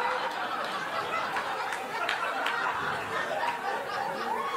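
Comedy club audience laughing after a punchline, the laughter gradually fading.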